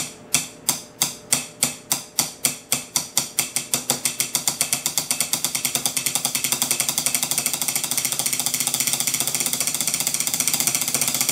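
Wooden drumsticks playing a double stroke roll on a closed aluminium bait mold, with a metallic ring. The strikes start slow, a few a second, and speed up steadily into a fast continuous roll.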